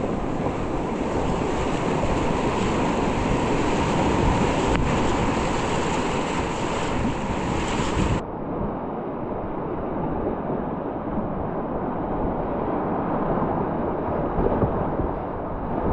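Whitewater rapids rushing around a kayak, with wind and spray buffeting an action camera's microphone. About eight seconds in the sound abruptly turns duller, losing its hiss.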